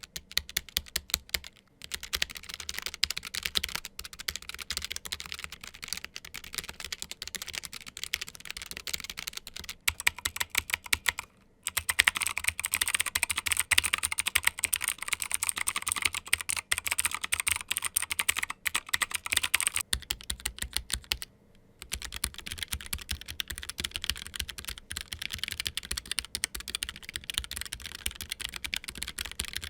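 Continuous fast typing on three low-profile mechanical keyboards in turn, about ten seconds each: a Logicool G913 TKL, then a Logicool G835 TKL, then a Keychron K1 SE. There are short pauses where the keyboard changes. The G835 stretch in the middle is the loudest and brightest.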